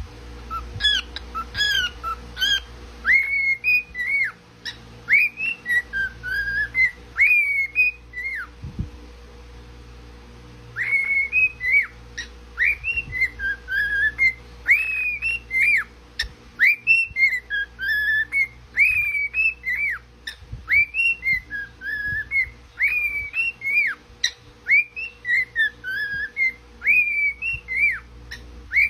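Grey cockatiel whistling a tune of quick rising and falling notes over and over, breaking off for about two seconds some eight seconds in, then whistling on.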